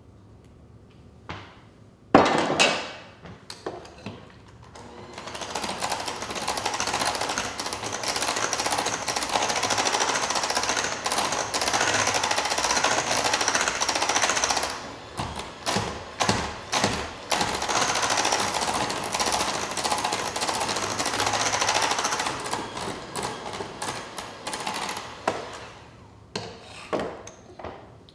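Electric hand mixer beating pumpkin cream-cheese cheesecake batter in a glass bowl, running steadily, broken for a couple of seconds in the middle and stopping a few seconds before the end. A sharp knock comes about two seconds in.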